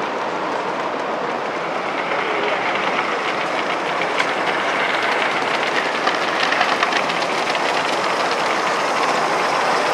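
Gauge 1 live steam model trains running on a layout, their wheels clicking over the rail joints against a steady background hiss; the clicking is busiest in the middle.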